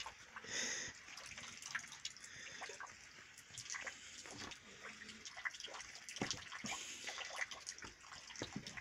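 A puppy mouthing and chewing on a person's hand: quiet, wet smacking and many small irregular clicks.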